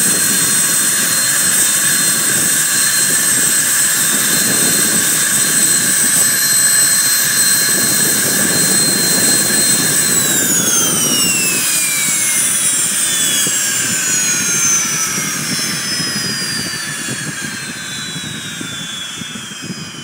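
Learjet 25's number-one engine, a General Electric CJ610 turbojet, running with a steady high whine, then shut down about halfway through: the whine falls steadily in pitch as the engine spools down and the noise fades.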